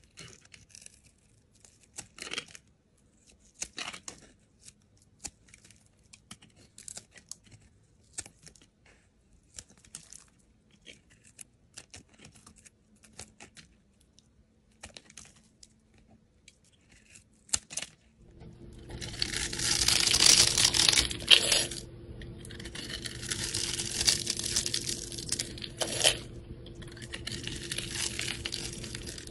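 Snap-off utility knife blade shaving thin curls off a bar of soap: short, quiet scraping strokes about once a second. About 18 seconds in, a knife cutting through a scored, multicoloured soap block takes over, a much louder, continuous, dense scraping in three long runs over a low steady hum.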